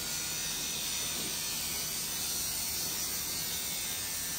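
Rotary pen tattoo machine running with a steady buzz.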